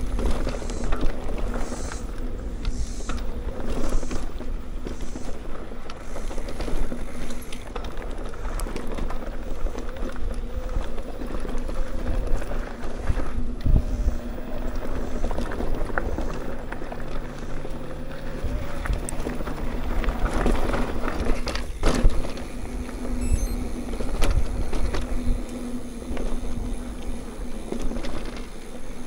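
Mountain bike rolling along a dirt singletrack trail: steady tyre noise with many small clicks and knocks of rattling parts, and wind rumbling on the microphone.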